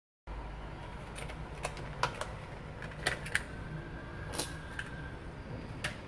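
Small plastic bicycle reflector pieces being handled and set down on fabric over a table: a scatter of light clicks and taps over a low steady hum, starting after a moment of silence.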